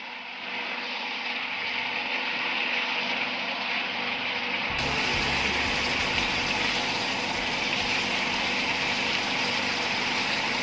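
Pork and green beans simmering in a thick sauce in a nonstick pan, sizzling and bubbling steadily, with a spatula stirring through it about halfway through.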